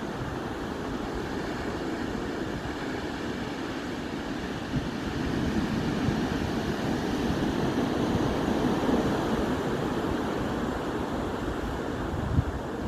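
Sea surf breaking and washing in continuously, heavy with swell from a typhoon offshore, swelling louder in the middle, with wind on the microphone. A short low thump near the end.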